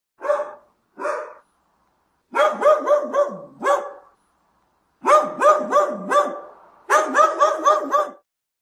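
A dog barking: two single barks, then three quick runs of about five or six barks each.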